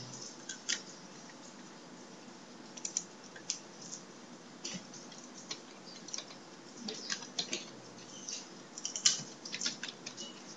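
Computer keyboard being typed on in short irregular bursts of key clicks, over a faint steady hiss.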